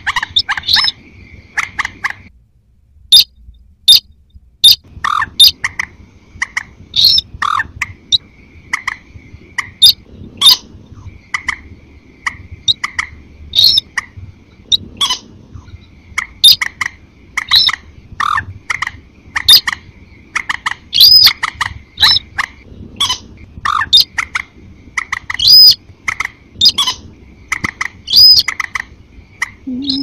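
Bird-lure recording of rail calls: sintar crake calls mixed with moorhen (mandar) calls, a dense run of short, sharp, repeated calls, several a second. A thin, steady high buzz runs behind them and drops out now and then.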